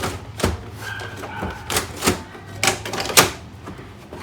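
Sharp plastic clicks and knocks from handling a Canon MF3010 laser printer while its toner cartridge is put back in for a test, about half a dozen over a low steady hum.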